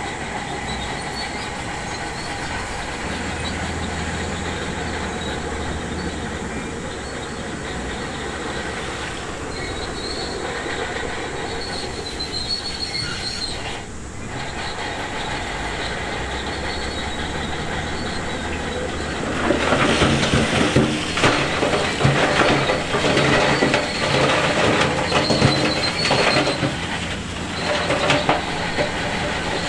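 Shantui DH17C2 crawler bulldozer working, its engine and steel tracks running steadily. About two-thirds of the way through, a louder, uneven clatter of rock starts and goes on.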